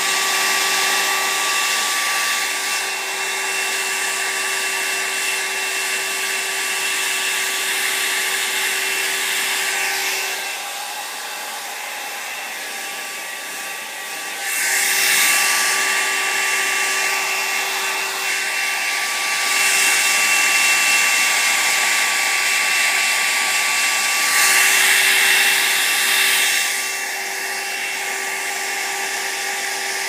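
Hair dryer running steadily, a rush of air with a constant motor whine, growing louder for a couple of seconds three times in the second half.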